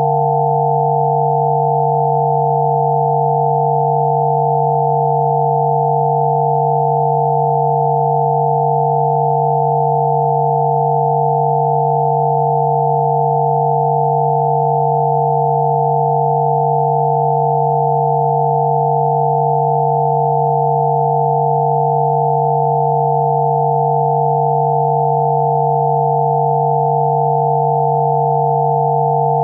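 Synthesized pure sine tones from a 'healing frequency' track: a low hum and several higher tones sounding together, held perfectly steady and loud without any change.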